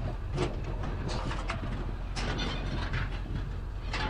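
Rope being pulled and cinched over a load of scrap metal in a truck bed: a series of short rubbing and scraping strokes over a steady low rumble.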